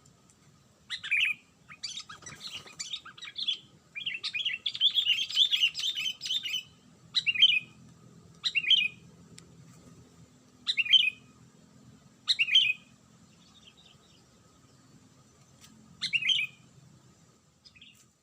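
Sooty-headed bulbul calls: a run of busy chattering over the first several seconds, then short single chirps every one to four seconds.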